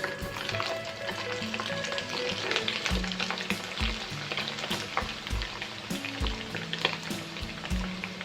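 Food frying and sizzling in hot oil in a pan, stirred with a utensil that gives many short clicks and scrapes. A steady music beat plays underneath.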